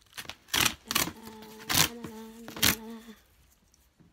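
A mail parcel being torn open by hand: four short, sharp rips of packaging. A steady low tone holds through the middle of them.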